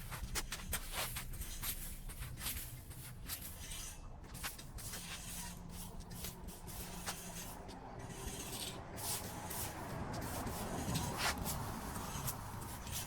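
Irregular scraping and rubbing of wet debris being cleared from a street drain, over a steady wash of flowing water.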